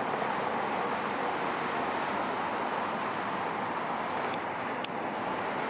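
Steady running noise of a moving vehicle, with a couple of faint clicks near the end.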